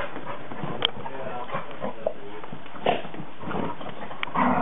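Dogs play-fighting on bedding: rustling and scuffling of fabric, with a few sharp clicks and short vocal noises from the dogs, louder near the end.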